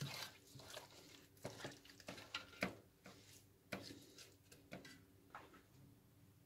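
Faint, irregular wet squelches and slaps of a hand massaging marinade into raw goat kid meat in a roasting pan, stopping near the end.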